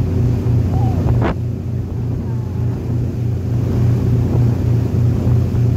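Ferry engine droning with a steady low throb, plus wind buffeting the microphone. A short sharp sound cuts through about a second in.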